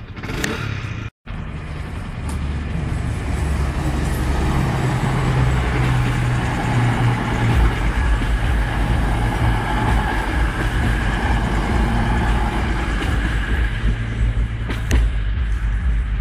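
CrossCountry class 220 Voyager diesel multiple unit passing close by over the level crossing: its underfloor diesel engines run with a deep drone and the wheels rumble on the rails, building over the first few seconds and staying loud. The sound drops out briefly about a second in, and there is a single sharp clack near the end.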